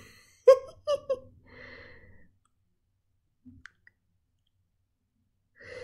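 A few short vocal sounds with clicks in the first two seconds, then near silence.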